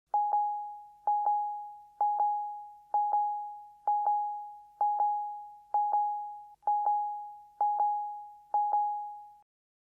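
An electronic chime tone at one pitch, repeated ten times about once a second. Each repeat is a quick double strike that rings and fades.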